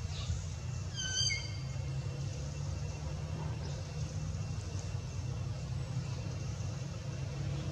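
A brief high-pitched animal squeal about a second in, over a steady low rumble.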